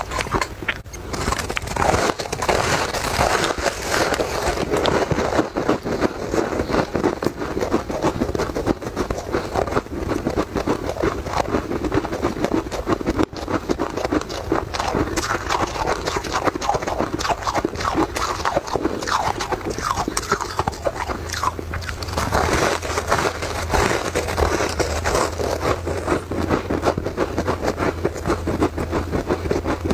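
Close-miked chewing of a crisp puffed-grain cake: a continuous run of crackling crunches from the eater's mouth.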